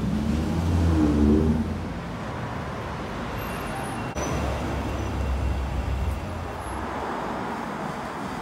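A car engine accelerating, its pitch rising for about a second, loudest near the start. Then it fades into steady street traffic noise.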